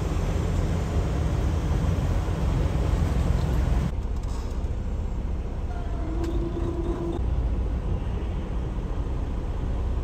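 A truck on the move: a steady low rumble of engine and road noise. About four seconds in the higher hiss drops away abruptly, leaving mostly the low rumble.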